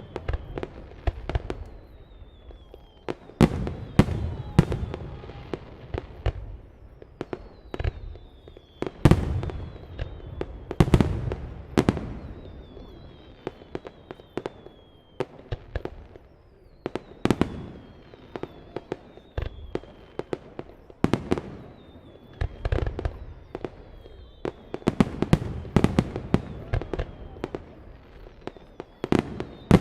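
Fireworks display: a rapid, irregular series of loud bangs from bursting aerial shells, with a faint high whistle falling in pitch that recurs every few seconds.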